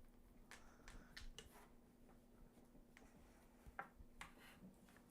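Faint, scattered light clicks and taps of a wooden broom-handle rolling pin rolling out puff pastry, over a faint steady hum.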